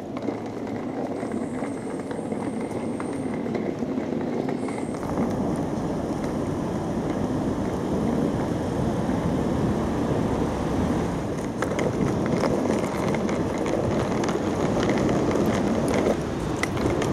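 City street traffic noise: a steady rumble of cars and other vehicles on a busy avenue, heard while walking along it.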